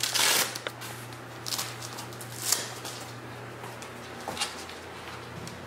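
A few scattered rustles and sharp taps as a dog moves about on a hardwood floor, over a steady low hum.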